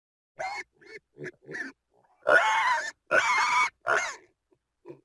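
A pig grunting: four short grunts, then three louder, longer, higher-pitched calls about two seconds in, and one more short grunt near the end.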